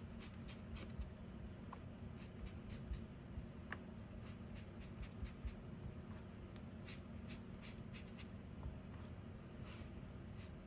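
Soft dabbing and rubbing of a small ink pad pressed through a plastic stencil onto paper, with scattered light taps and clicks as the mini ink pads are handled and set down on the table.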